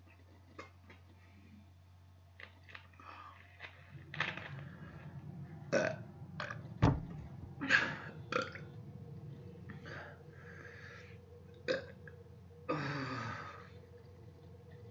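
A woman belching repeatedly from a full stomach of food and sparkling water. A run of burps with sharp pops starts about four seconds in, and a longer burp that falls in pitch comes near the end.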